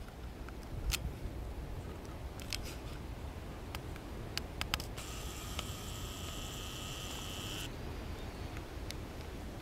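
Camcorder zoom motor whirring steadily for about three seconds, starting about halfway through. Under it a low rumble on the microphone, with a few small handling clicks earlier on.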